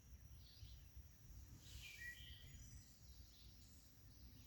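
Faint birdsong: a short run of chirping bird calls about two seconds in, over a low outdoor rumble.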